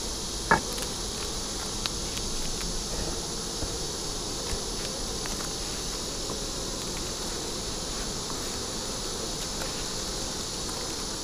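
Honeybees buzzing steadily around an open hive. There is a single sharp tap about half a second in and a few faint clicks after it.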